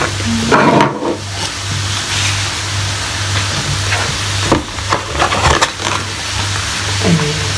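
Food sizzling steadily in a frying pan, with a cooking utensil scraping or stirring in the pan a few times.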